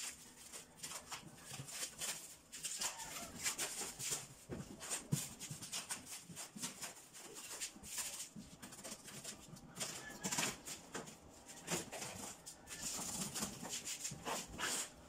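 Packing being cut open with a knife: black plastic wrap and packing tape crinkling, tearing and scraping in a run of short, uneven crackles, then cardboard boxes being handled.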